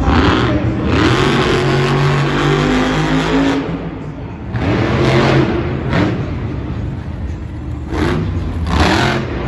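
Monster truck's supercharged V8 engine revving hard in repeated surges, the pitch climbing and falling several times, with a brief ease-off midway.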